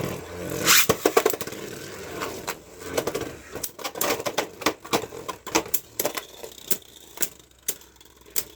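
Two Beyblade Burst spinning tops (Super King Jet Wyvern and Super Hyperion) in a test battle: a zipping launch about a second in, then the tops spinning and scraping in the stadium with many irregular sharp clicks as they clash.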